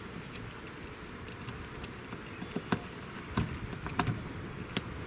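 Scattered light clicks and knocks of a transducer cable's plug being pushed by hand through a tight hole in a fiberglass boat transom, the sharpest few in the second half.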